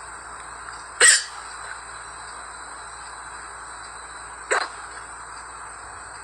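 A girl hiccuping twice, a loud sharp hiccup about a second in and a softer one about three and a half seconds later, over a steady background hiss.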